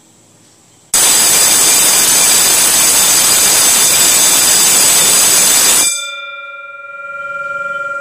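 Electric school bell with a large chrome gong ringing continuously for about five seconds, starting about a second in and cutting off suddenly, set off by an automatic bell timer on its programmed five-second continuous ring. After the cut-off the gong keeps humming with a few clear steady tones.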